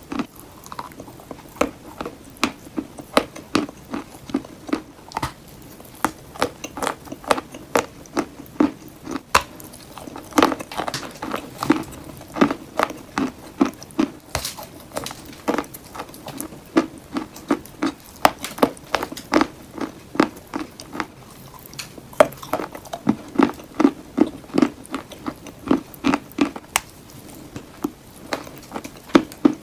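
Close-up crunching of chalk being bitten and chewed, a steady run of sharp crisp crunches at about two or three a second.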